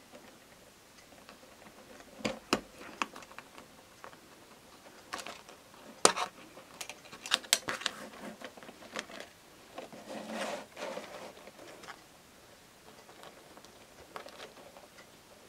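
Hands handling a frosted plastic planner insert and threading a string through it: scattered light clicks and taps, with a short rustle about ten seconds in.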